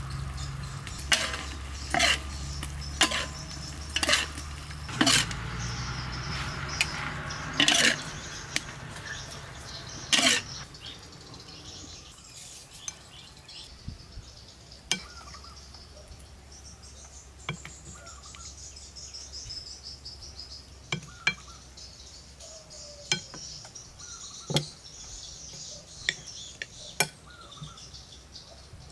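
A metal utensil knocking and scraping in a large metal wok about once a second as the food is stirred. After about ten seconds the knocks give way to a spoon clinking now and then on a ceramic plate, with insects buzzing high in the background.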